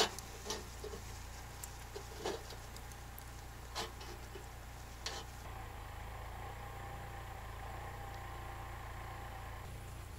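Shashlik grilling over charcoal in a mangal, with a few scattered crackles and pops in the first half, over a steady low hum.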